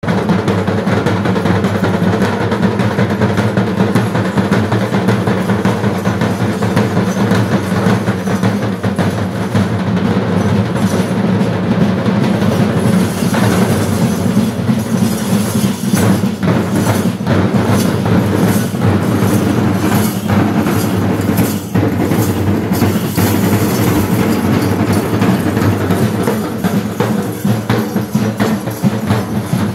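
Festival drumming: rapid, continuous drum rhythm accompanying a Poothan dance, with a brighter high shimmer joining about halfway through.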